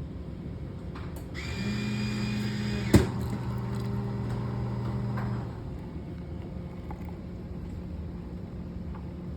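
Coffee machine running: a steady mechanical hum starts about a second and a half in and stops after about four seconds, with a sharp click partway through.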